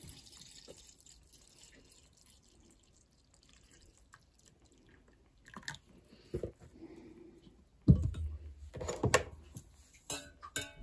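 Tea pouring faintly from a glass teapot's spout into a mug, then a few light clicks and two knocks, the loudest about eight seconds in, as the glass teapot is set down.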